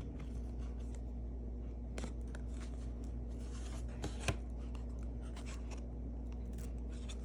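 Trading cards sliding and rubbing against each other as they are shuffled through by hand, with light ticks and a sharper click about four seconds in, over a steady low hum.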